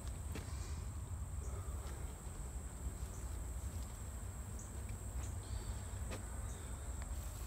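Insects droning steadily in one high, unbroken tone, over a low rumble, with a few faint clicks.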